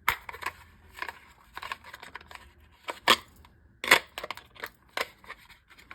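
Hard plastic kydex sheath and its mounting clip handled and fitted, giving irregular clicks and scrapes, with two sharper clicks about three and four seconds in.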